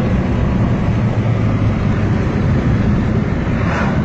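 Honda Fit driving on the road, heard from inside the cabin: a steady low rumble of engine and tyre noise.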